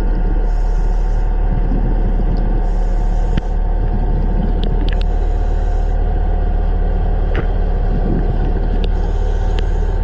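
Steady low mechanical rumble with a constant deep hum, broken by a few faint clicks.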